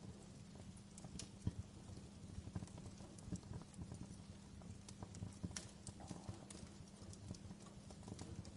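Campfire burning, with irregular crackles and sharp pops over a low steady rumble.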